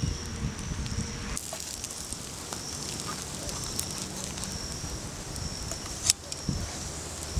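Campfire of burning logs crackling, with one sharp pop about six seconds in, as bread fries in a small pan over the coals.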